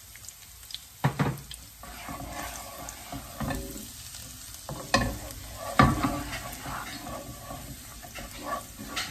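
Garlic and curry powder frying in oil in a non-stick frying pan, sizzling while it is stirred with a wooden spoon. The spoon scrapes the pan and knocks against it a few times, loudest about a second in and again around five and six seconds in.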